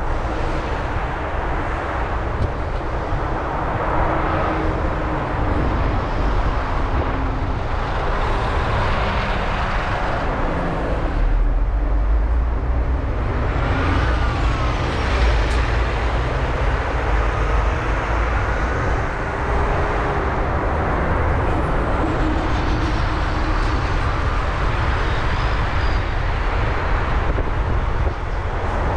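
Steady road and traffic noise from a car driving in city traffic: a low tyre and engine rumble that grows heavier for a few seconds around the middle.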